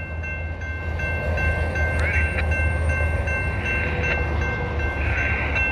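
Railroad grade-crossing bell ringing steadily over the low rumble of an intermodal freight train rolling slowly through the crossing.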